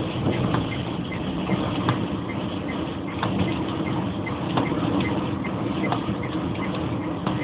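Inside a car driving on a wet road in the rain: a steady low rumble of engine and tyres, with a light, regular ticking about three times a second and a few brief knocks.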